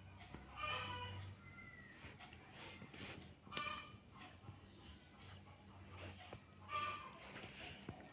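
Faint animal calls: three short cries, about three seconds apart.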